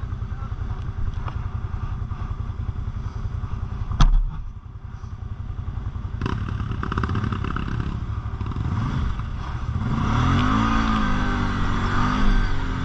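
Quad bike (ATV) engine running with a fast, even pulsing, a single sharp knock about four seconds in, then revving up and down over the last few seconds.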